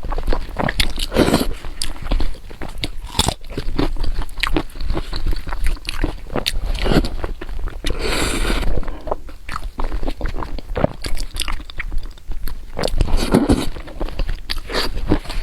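Close-miked eating sounds: a person chewing and biting food, with many quick, irregular clicks and a few longer noisy stretches, the longest about eight seconds in.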